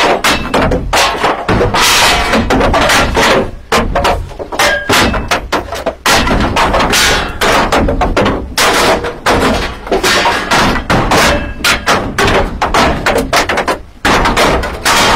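Loud, irregular banging and clattering: many sharp knocks in quick, uneven succession, dying away just after the end.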